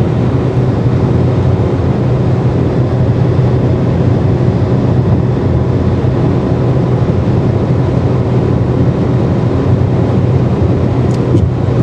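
Steady in-cabin drone of a 2011 Hyundai Elantra cruising at about 100 mph on cruise control, its 1.8-litre four-cylinder engine running near 4,000 rpm under a constant rush of wind and road noise. A few faint ticks come near the end.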